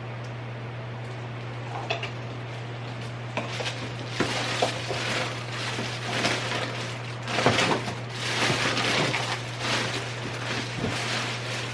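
Things being handled and put away: irregular rustling and scraping with a few small knocks and clicks, busiest a little past the middle, over a steady low hum.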